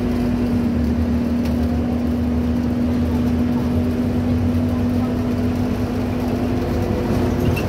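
Inside the passenger cabin of a Scania N230UB OmniCity single-decker bus: its nine-litre five-cylinder diesel and drivetrain running with a steady low rumble and a constant hum that holds one pitch.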